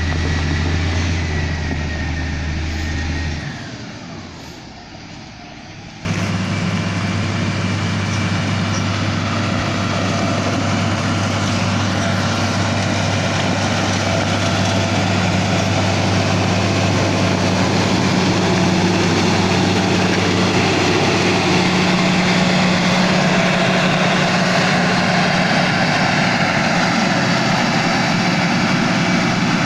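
Komatsu GD555 motor grader's diesel engine running steadily, a deep drone with a noisy wash above it. About three and a half seconds in it fades to a lower level, then about six seconds in it cuts back in abruptly, louder, and holds steady after that.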